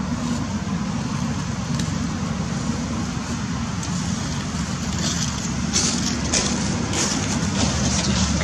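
Steady low outdoor rumble, with light crackles of dry leaf litter from about five seconds in.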